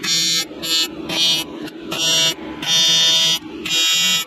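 AC TIG welder arc buzzing on aluminum, struck in about six short bursts with brief pauses between, the longest about a second. The arc is being laid on a dirty crack in an aluminum boat that keeps fighting the weld.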